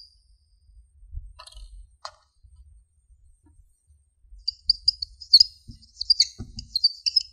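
Whiteboard marker squeaking as characters are written: a quick run of short, high squeaks starting about four and a half seconds in, after a near-quiet stretch with a couple of faint taps.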